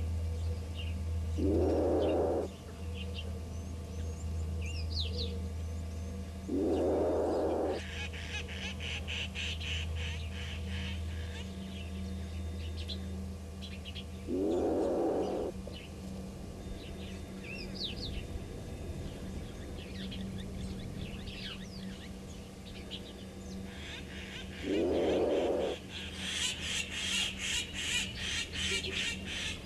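An unidentified animal call, about a second long, repeated four times several seconds apart over a low steady hum, with birds chirping and a fast high pulsing trill twice.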